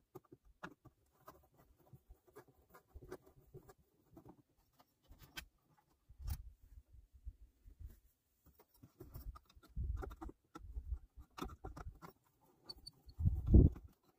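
Hand screwdriver working screws out of an old outdoor light fixture: scattered faint scratchy clicks and scrapes, with low handling thumps, the loudest near the end.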